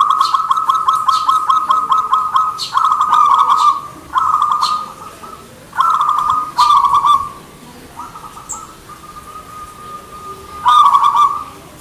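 Zebra dove (perkutut) cooing: a run of rapid trilled phrases at one steady pitch, several in a row with short gaps, then softer notes before one more loud phrase near the end.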